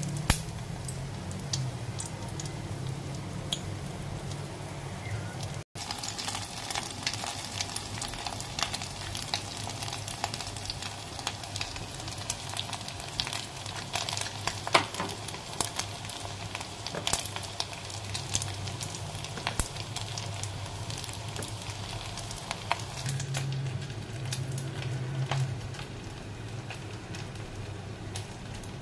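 Egg-battered gimbap slices frying in hot oil in a stainless steel pot: a steady sizzle full of sharp crackles and pops, broken by a short dropout about six seconds in.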